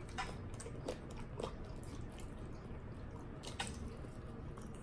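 Quiet wet chewing and lip-smacking from people eating sauced chicken wings, with a few scattered small clicks of mouth and fingers.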